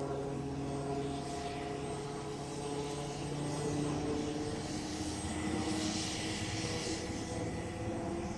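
Piasecki X-49A compound helicopter in flight: a steady drone from its rotor, engines and ducted tail propeller, with several held tones that shift a little in pitch. A rush of higher-pitched noise swells about five to seven seconds in.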